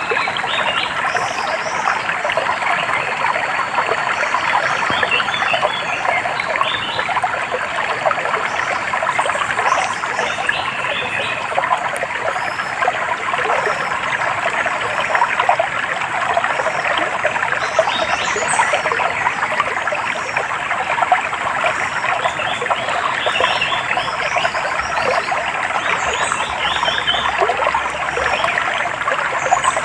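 Shallow stream trickling and babbling steadily over stones, with birds chirping short high notes now and then above the water.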